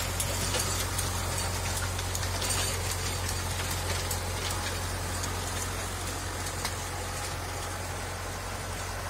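John Deere 5615F tractor's diesel engine running steadily as the tractor drives through crop rows powering a rear rotary tiller, with scattered light clicks over the drone.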